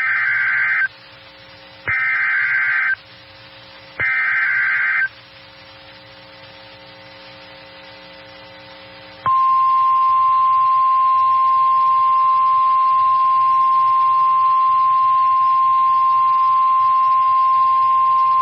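Emergency Alert System signals: three one-second bursts of SAME digital header data, screechy and about two seconds apart, then a pause of about four seconds, then NOAA Weather Radio's single steady 1050 Hz warning alarm tone, which starts about nine seconds in. Together they mark the start of a severe thunderstorm warning alert.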